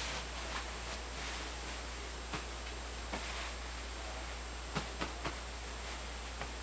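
Pillow and bedding fabric rustling softly as it is pushed and shifted, over a steady hiss, with a few faint short clicks.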